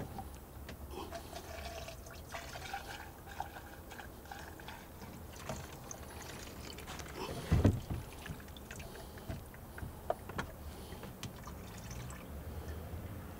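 Fuel poured from a plastic can through a funnel into a new spin-on fuel filter to pre-fill it before fitting. A single thump about halfway through.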